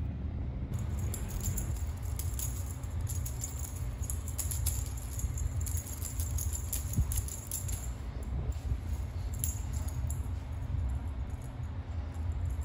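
Light, irregular metallic jingling and clicking as a kitten plays with a dangling pom-pom wand toy, over a steady low hum, with a single soft knock about seven seconds in.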